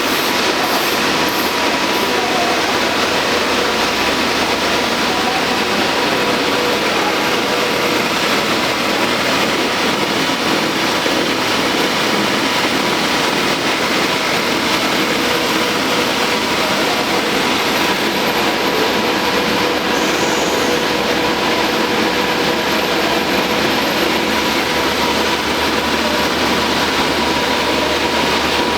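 Paper roll slitting machine running steadily: a continuous mechanical whir with a faint steady whine.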